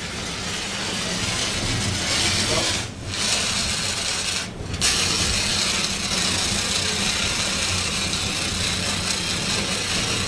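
6 kg ABC dry-powder fire extinguisher discharging onto a fire with a loud, steady hiss. The hiss breaks off briefly twice, about three and about four and a half seconds in.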